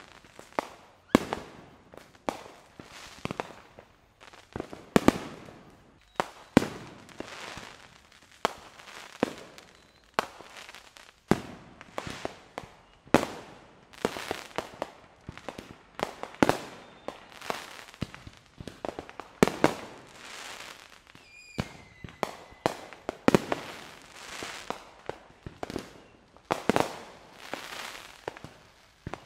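Aerial fireworks shells bursting in quick succession: sharp bangs about one or two a second, several trailing off in a short hiss.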